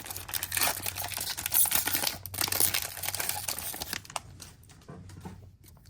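Foil wrapper of a Pokémon card booster pack crinkling as it is torn open, a dense run of crackles that dies down about four seconds in.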